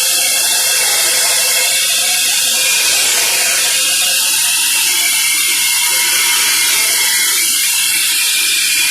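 Band saw machine running: a steady mechanical hiss and whir.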